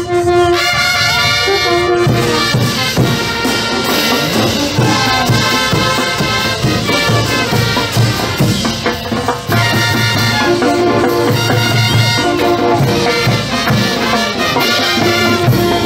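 Brass band playing, loud and continuous.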